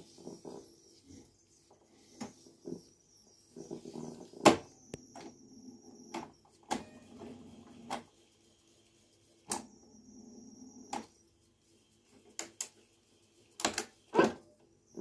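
Tesla B90 reel-to-reel tape recorder being operated: its rotary function knobs clunk one after another as they are switched. Between some of the clicks the mechanism runs with a steady whir as the reels spin.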